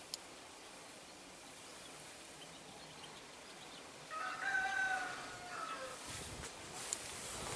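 A rooster crowing once in the background, a single call of about two seconds starting a little past the middle.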